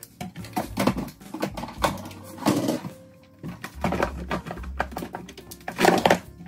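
Irregular knocks, clicks and clatter of kitchen utensils and dishes being handled and put away during cleanup. Two louder clatters come about two and a half seconds in and near the end.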